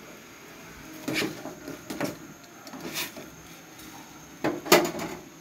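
Kitchen utensils and containers knocking and clattering as they are handled: about five sharp knocks, the loudest near the end.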